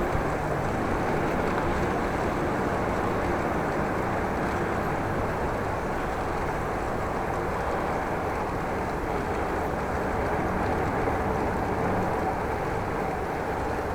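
Steady wind rumble and riding noise on an action camera's microphone while cycling, even and unbroken.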